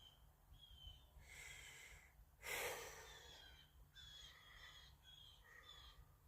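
Quiet outdoors with a person's breath rushing over the microphone, loudest about two and a half seconds in. A bird calls repeatedly through it with short, high, falling whistles.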